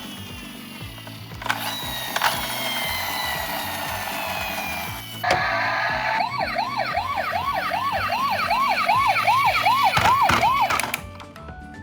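Electronic emergency-vehicle siren: first a few seconds of slow falling wail tones, then a fast yelp rising and falling about three times a second, which cuts off about a second before the end. Background music plays underneath.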